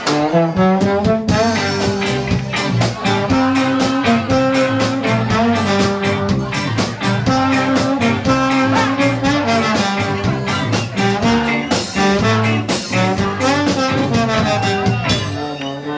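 Live band playing an instrumental passage, the trombone carrying the melody in held notes over electric guitars and a steady beat.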